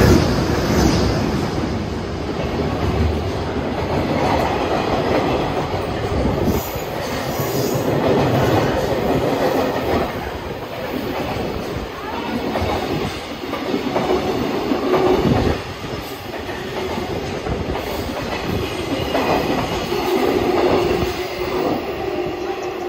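JR Freight EH200 electric locomotive and its train of Koki container flat wagons passing through a station at speed, wheels clattering over the rails. It is loudest as the locomotive goes by at the start, then the wagons run past in a steady rumble with repeated knocks, and a steady tone sounds near the end.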